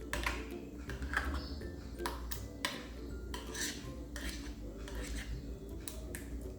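A utensil stirring and scraping cream filling in a bowl, with irregular clinks of metal against the bowl every half second or so.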